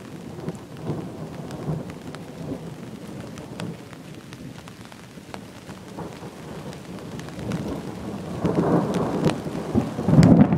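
Steady rain with scattered sharp drop ticks during a thunderstorm. From about eight seconds in, a rolling thunder rumble builds and grows loud near the end.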